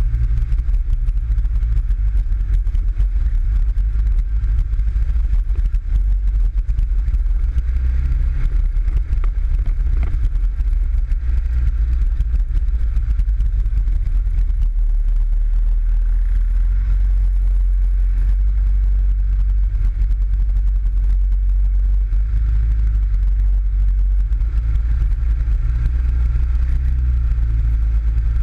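PGO 500i off-road buggy's engine running steadily under way, heard on board as a continuous low drone.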